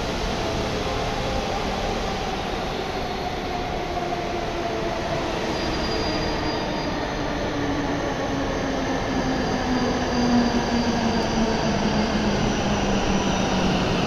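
W7 series Shinkansen train pulling into a station and slowing: a steady rumble with its motor whine falling in pitch as it brakes. It grows louder in the last few seconds as the cars come alongside.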